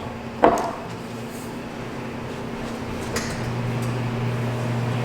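Kitchen sounds: a single sharp knock about half a second in, then a low steady appliance hum that comes on about three and a half seconds in.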